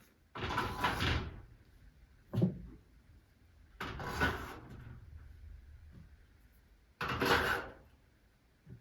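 Workshop handling noises: four separate scraping, sliding clatters, each a second or less long, as tools and tool holders are moved and put away.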